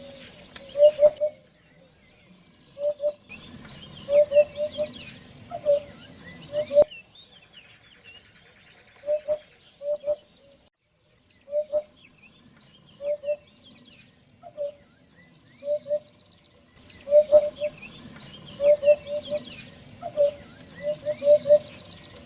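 Eurasian hoopoe calling: short, low hooting notes in groups of two or three, repeated every second or two. Other small birds chirp higher behind it, coming and going in patches.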